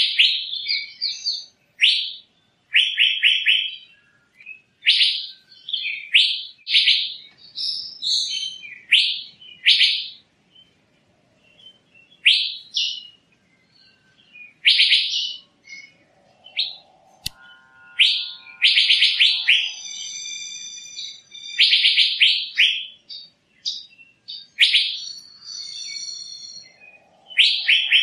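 Asian fairy-bluebird (Irena puella) calling: a run of short, sharp, high notes in quick clusters, with longer ringing calls made of several steady tones a little past halfway and again near the end.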